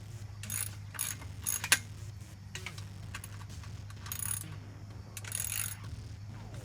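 Ratchet wrench clicking in several short bursts with pauses between them, a sharp click among them, as the pit bike's front axle fastening is loosened from the shipping frame.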